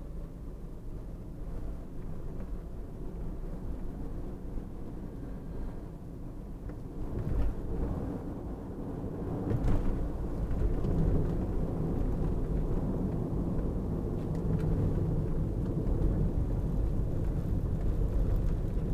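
Car running down the road, heard from inside the cabin: a steady low rumble of engine and tyre noise that grows louder about halfway through.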